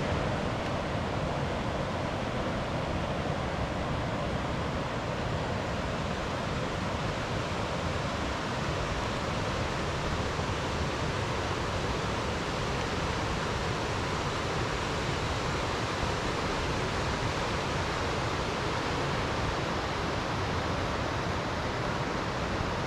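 A rocky mountain river rushing over stones, a steady even rush of water that does not change.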